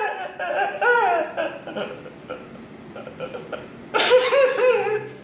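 An adult crying hard: loud wailing sobs about a second in and again about four seconds in, with quieter broken breaths and sniffles between.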